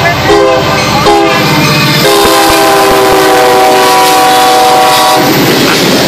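Locomotive air horn sounding a chord of several notes in two short blasts and then one long blast of about three seconds. It cuts off about five seconds in, and the rushing noise of the train passing close by takes over.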